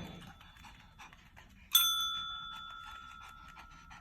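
A dog panting, with one ding of a small bell about two seconds in that rings on and fades over the next two seconds: the dog ringing the bell as a trick.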